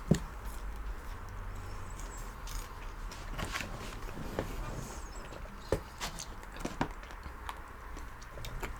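Quiet eating at a table: a few scattered light clicks and taps over a steady low hum.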